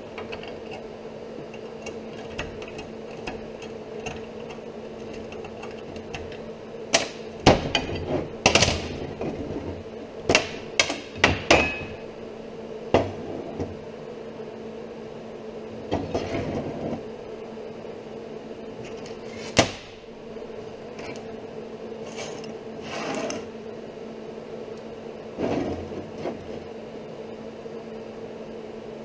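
Steel workpieces and locking C-clamps being handled on a metal workbench: a run of sharp clanks and knocks, then scattered single knocks and brief scrapes of metal on metal. A steady low hum sits underneath.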